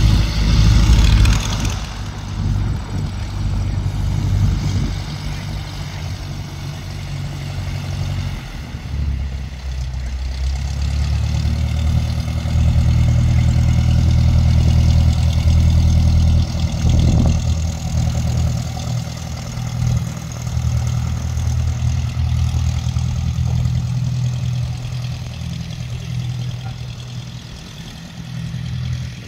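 Cessna 177RG Cardinal's four-cylinder engine and propeller running during its takeoff: a steady low drone that grows louder in the middle and fades near the end.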